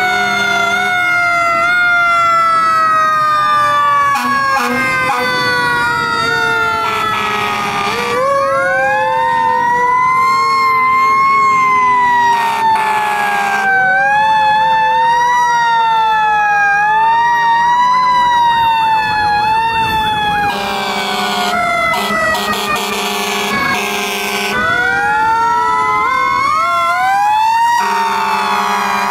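Fire truck sirens. A mechanical siren winds down in a long falling tone and spins back up several times. Another siren rises and falls about every two seconds, and air horns blast four times, the longest about four seconds.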